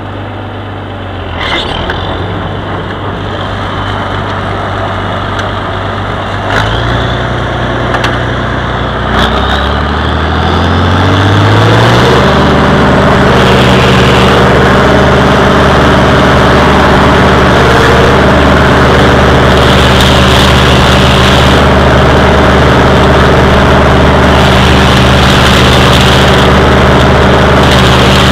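Oliver 1955 tractor engine running at low speed with a couple of knocks. About ten seconds in it revs up over two or three seconds, then runs steadily and louder at high speed, driving a PTO-powered stalk chopper through corn stalks.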